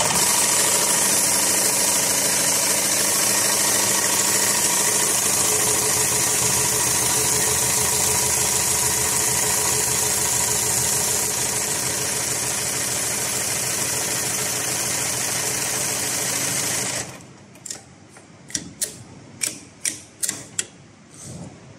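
HighTex 7273PLK/R extra heavy-duty automatic bar-tacking sewing machine running at high speed, stitching a bar tack through thick safety rope with a dense, rapid needle rhythm. After about seventeen seconds it stops, and a string of sharp clicks and clacks follows.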